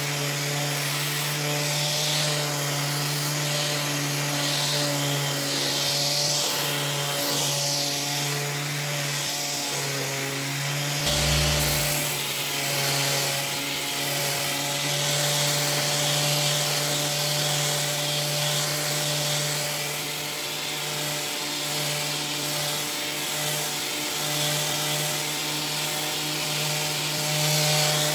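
Electric sander running on a wooden tabletop, sanding off the old stained finish: a steady motor hum with a hiss of abrasive on wood, its pitch wavering slightly as it is pressed and moved. A brief low bump about eleven seconds in.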